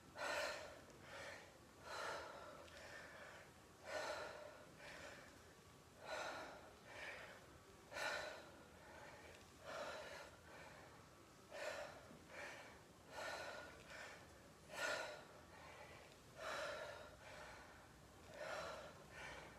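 A woman breathing hard while exercising: a short, forceful breath about every two seconds, about ten in all, one with each repetition.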